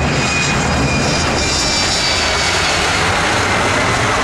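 Embraer E-Jet's twin turbofan engines at takeoff thrust as it rolls down the runway: a loud, steady jet roar with a high fan whine that slowly drops in pitch as it passes.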